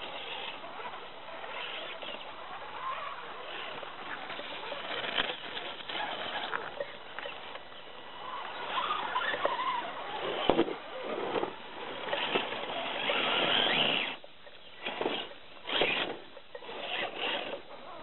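Radio-controlled scale crawler trucks clambering over rocks and dry leaves: an irregular mechanical and scrabbling noise, loudest about two-thirds of the way through, then broken into short bursts near the end.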